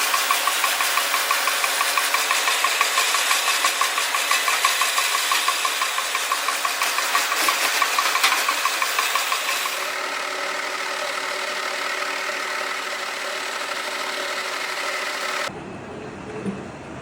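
DIP500 heavy lathe machining a 30KhGSA steel workpiece: dense mechanical noise that pulses about four times a second for roughly ten seconds, then settles into a steadier hum. Near the end it changes abruptly to a duller, lower sound.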